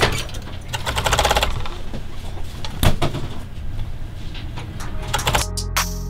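Serger (overlock sewing machine) running steadily, stitching a seam, with a fast, even clatter over a low motor hum and one sharp click about three seconds in. Near the end the machine sound gives way abruptly to background music with a steady beat.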